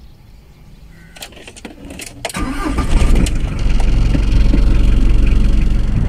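Car engine starting after a few clicks, then running with a steady low rumble from about two and a half seconds in.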